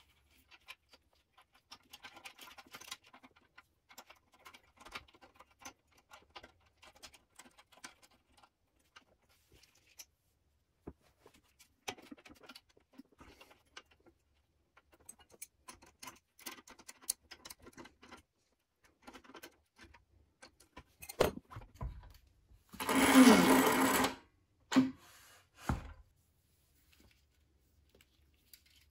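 Small clicks and light metallic rattles of hands working the brake cable and caliper nuts and bolts on a scooter's rear disc brake. About 23 seconds in there is a louder, denser burst lasting about a second, followed by two short knocks.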